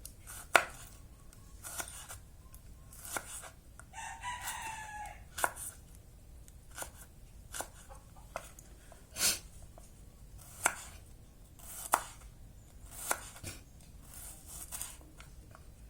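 Knife slicing shallots on a cutting board: slow, uneven chops, roughly one a second. A rooster crows once in the background about four seconds in.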